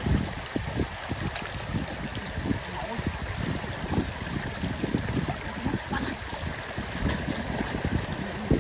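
Shallow floodwater running steadily over the ground, with splashes as people wade and scoop through it with baskets, and frequent low irregular thumps.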